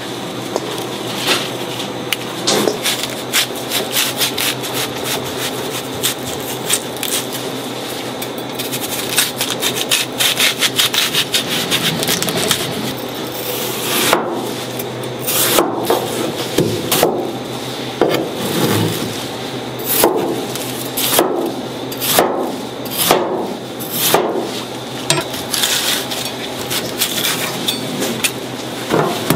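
A kitchen knife cuts through fruit on a cutting board. The blade makes a continuous scraping, sawing sound of rapid strokes, then from about halfway it gives separate cuts roughly once a second.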